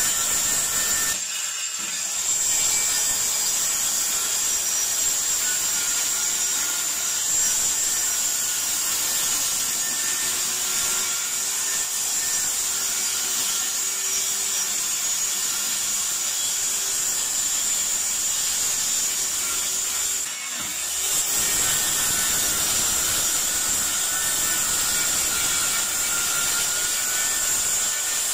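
Handheld electric circular saw running and cutting through a wooden board, a steady high whine over the noise of the blade in the wood. The sound briefly dips twice, about a second and a half in and about twenty seconds in.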